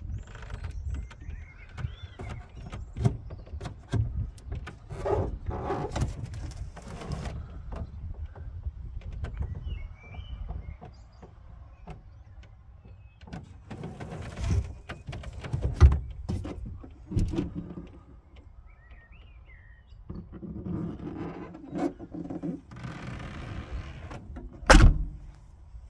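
Low wind rumble and handling noise on a phone microphone, with scattered knocks and thuds as a car's hatchback boot is looked over. There is one sharp bang near the end, and a few faint chirps.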